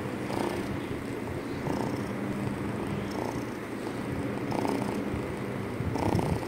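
Ginger kitten purring loudly and steadily while being stroked on the head, the purr swelling in regular pulses about every second and a half.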